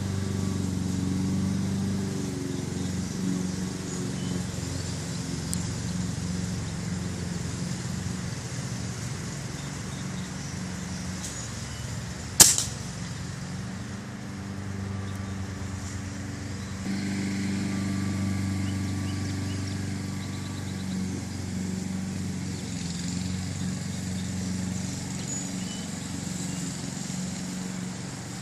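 A single gunshot about twelve seconds in, sharp and much louder than anything else, from a firearm being sighted in. Under it runs a steady low mechanical hum.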